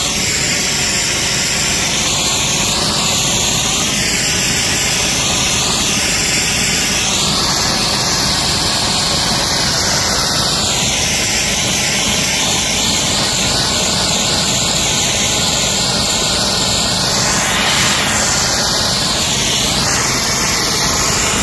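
Pressure-washer wand blasting a high-pressure water jet into a tennis court's plastic grid surface: a loud, steady spray hiss whose tone sweeps up and down as the jet moves across the court. The spray cuts off suddenly at the end.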